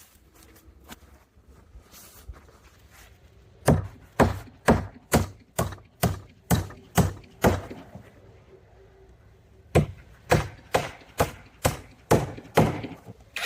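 Hammer driving nails into a wooden fence: a run of sharp, even blows at about two a second, a short pause, then a second run. A few faint taps come before the first run.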